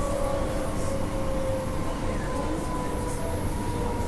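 Electric suburban train running, heard from inside the carriage: a steady low rumble with a motor whine that sinks slightly in pitch as the train slows for a station.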